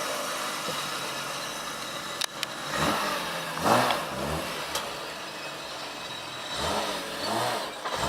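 BMW M3 engine accelerating as the car is driven, its note rising twice, about three seconds in and again near the end.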